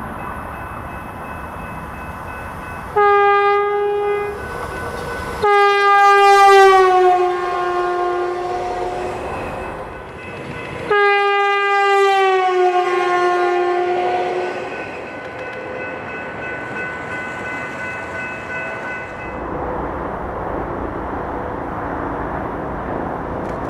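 Stadler FLIRT diesel multiple unit's horn: one short blast, then two long blasts, each sagging in pitch toward its end. After the horn, the railcar's steady running noise, louder in the last few seconds.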